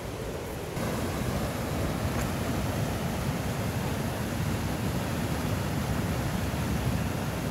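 Rushing water of a small mountain river, a steady noisy wash that steps up in loudness about a second in.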